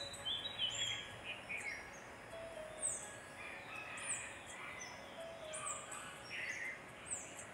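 Several birds chirping and calling: many short, high whistled notes, a number of them sweeping downward, over a faint steady hiss.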